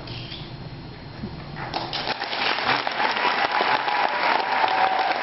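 Audience applauding: the clapping starts about two seconds in and grows louder.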